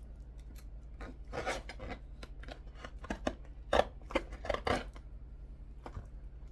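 A sharp blade cutting open packaging in a series of irregular snips and scrapes, the loudest a little under four seconds in, over a faint steady low hum.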